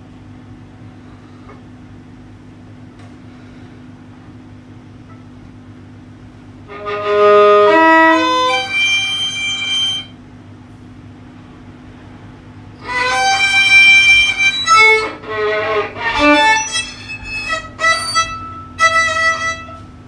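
Violin bowed in two phrases of held notes stepping in pitch, the first starting about seven seconds in and the second about thirteen seconds in, with a pause between. A low steady hum runs underneath.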